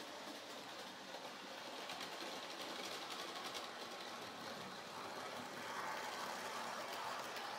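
Model Class 20 diesel locomotive running on the layout's track, towing flask wagons: a steady whir of the motor and wheels on the rails, louder as it passes close, about six seconds in.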